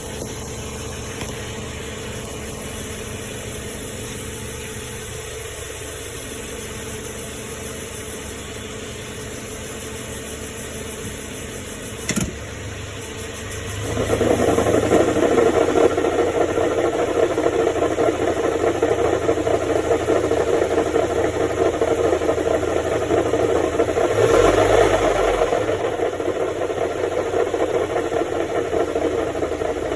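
A 2013 Subaru Legacy 2.5 CVT running with a steady low hum, then, a little under halfway through, a loud rough grinding sets in and continues. The grinding comes from the front differential area, with the wheel hubs and brakes already inspected and ruled out, on a car with just over 200,000 miles.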